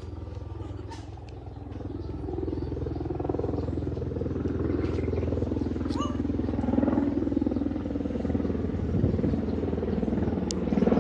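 Sikorsky S-70i Black Hawk helicopter approaching on a flyby: the rapid beat of its main rotor and the run of its twin turboshaft engines grow louder from about two seconds in.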